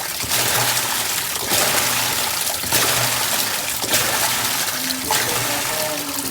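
Steady rush of running, splashing water, with faint swells about every second.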